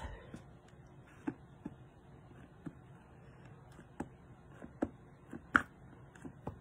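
Clear photopolymer stamp on an acrylic block being tapped onto an ink pad to ink it: a series of soft, irregular taps and clicks, the sharpest about five and a half seconds in.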